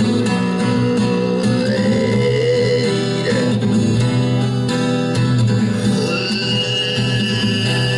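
Acoustic guitar played live as a solo piece, under a single high held tone that glides slowly up and down.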